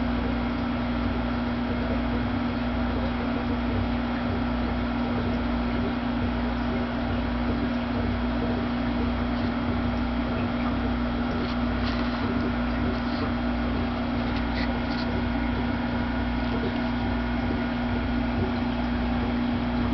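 Steady mechanical hum with a low, even throb, and a few faint clicks about halfway through.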